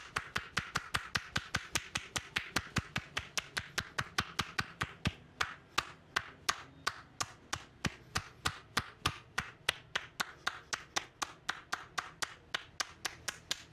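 Hands striking a person's back and shoulders in quick, even slaps, about four to five a second: manual percussion massage (tapotement). The strikes stop abruptly at the end.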